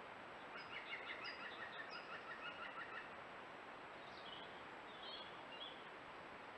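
A woodland songbird sings a fast phrase of repeated short notes lasting about two and a half seconds, followed a second later by a few scattered high chirps, over a faint, steady hiss.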